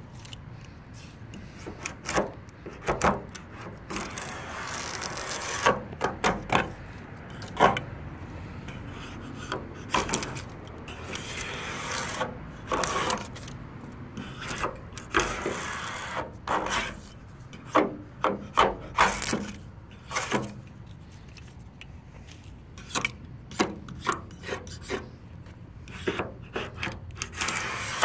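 Razor blade scraping paint off a car's body panel in quick, irregular strokes, the old base coat lifting and peeling away easily under the blade.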